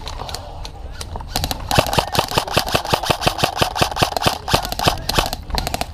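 Airsoft gun firing rapidly: a fast, even string of sharp cracks, about ten a second, that starts about a second and a half in and stops shortly before the end.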